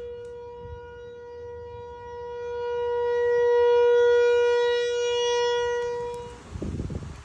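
Outdoor tornado warning siren wailing on one steady pitch, swelling louder to a peak about four seconds in, then fading away near the end.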